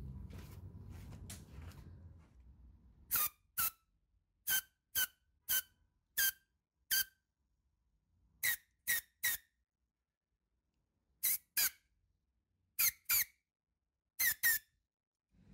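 Short, high-pitched squeaks, about sixteen in all, coming in quick twos and threes. They start about three seconds in, after a faint low rumble dies away.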